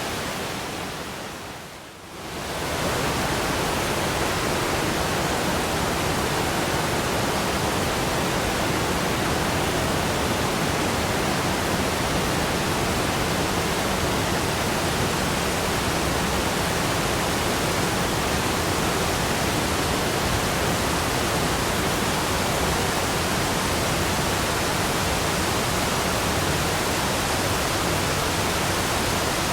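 Alpine waterfall: a steady, dense rush of falling water. It dips briefly in loudness about two seconds in, then holds even.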